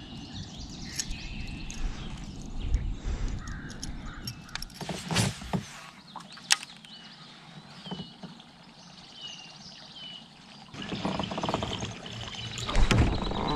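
Open-air ambience on the water: rustling wind and water noise with a few short bird chirps spaced about a second apart in the middle. The noise swells again near the end.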